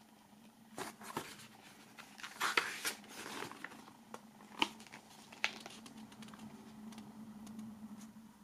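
Paper pages of a booklet being handled and turned: soft rustling and a few light ticks, busiest about two and a half seconds in, over a faint steady low hum.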